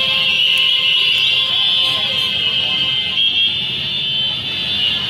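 Large street crowd and motorbikes in procession: a steady shrill high-pitched din over a low rumble of engines and crowd noise.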